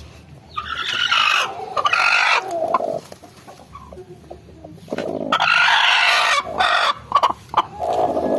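Chickens calling: two loud, drawn-out calls of about two seconds each, with shorter clucks between and after them.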